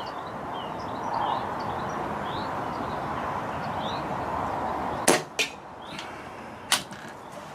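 An air rifle firing a .177 pellet: a sharp crack about five seconds in, then a smaller knock about a third of a second later as the pellet strikes the target, and another sharp click over a second later. Wind rushes across the microphone, and small birds chirp in the background.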